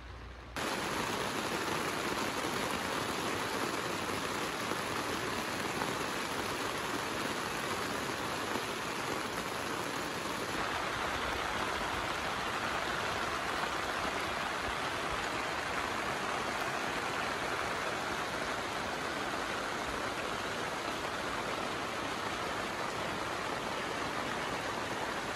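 Steady heavy rain, heard from inside a tent. It starts abruptly about half a second in.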